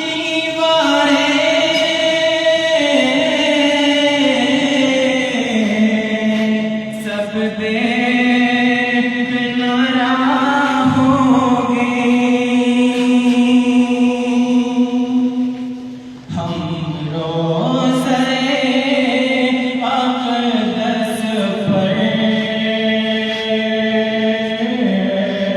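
Urdu naat sung without instruments: long drawn-out, melismatic vocal notes in a chant-like style, over a choir-like vocal backing. The sound dips briefly about sixteen seconds in, then the singing resumes.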